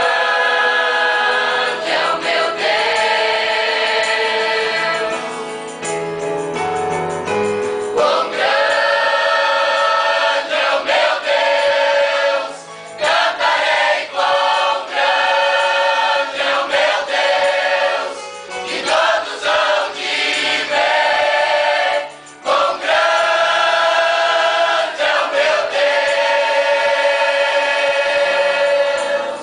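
Mixed church choir of women, men and children singing a Portuguese worship song, with short breaks between phrases.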